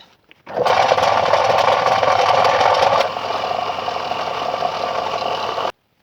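An electric motor or power tool running steadily. It starts about half a second in, gets a little quieter at about three seconds, and stops suddenly near the end.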